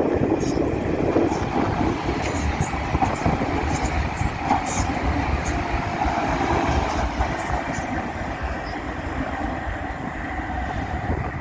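Newag Impuls electric multiple unit 36WEh-013 rolling slowly past along a station platform. The wheels and traction drive make a steady running noise throughout.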